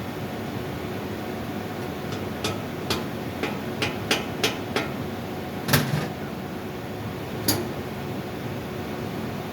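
Hammer taps: about eight sharp, irregular strikes over roughly five seconds, the loudest a little past the middle, over a steady background hum.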